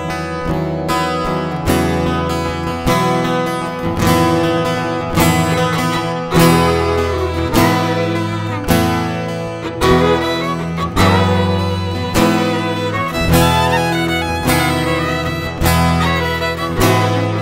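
Background music: acoustic guitar with violin, playing steady chords.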